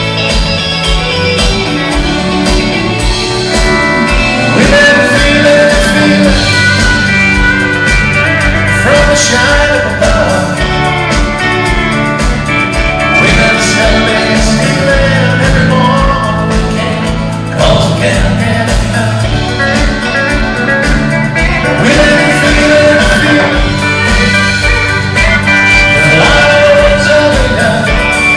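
Live country-rock band music: guitars over a steady drum beat, with some singing.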